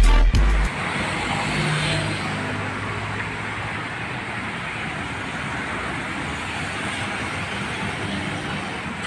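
An intro jingle cuts off within the first second, followed by steady road traffic: cars driving past on a wet city street, with a slight swell as one passes about two seconds in.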